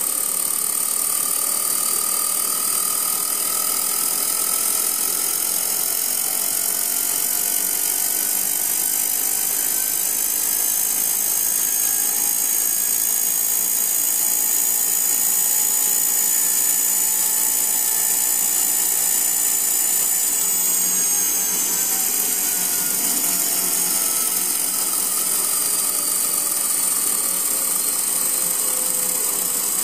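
Homemade electric scale-model turbofan: its electric motor, gear train and 16:1 geared flywheel whine at a high pitch. The whine rises as the throttle is advanced and the model spools up, holds steady in the middle, then falls through the last third as it spools down.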